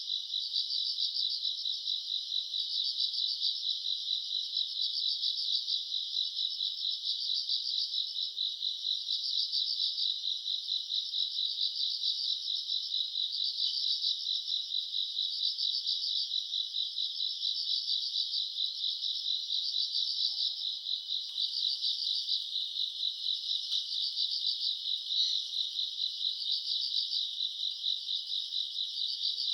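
Chorus of night-singing grass insects such as crickets, several high-pitched trills overlapping steadily, swelling and fading in a rhythm of roughly one pulse-group a second.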